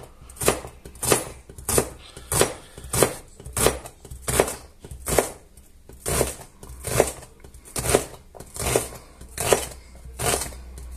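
Kitchen knife dicing an onion on a plastic cutting board: a steady run of strokes, about two a second, each a knock of the blade through the onion onto the board.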